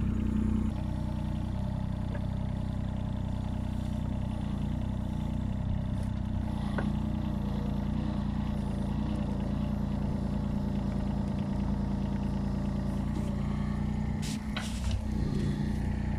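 Small excavator's engine running steadily while it digs. There are a few short knocks, the clearest near the end.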